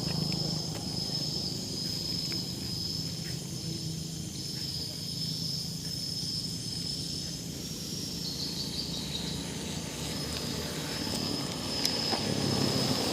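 Insects buzzing in a steady, high-pitched tone that drops out briefly now and then, over a low steady rumble.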